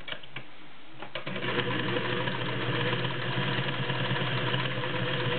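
Singer 604E Touch & Sew all-metal, gear-driven straight-stitch sewing machine starting up about a second in after a few light clicks, then running at a steady speed with an even whir.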